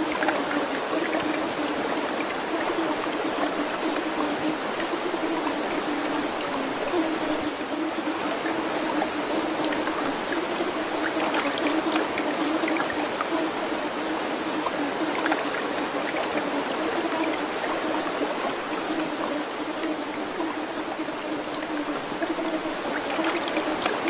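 Steady sound of running water, like a flowing stream, with a low steady drone underneath.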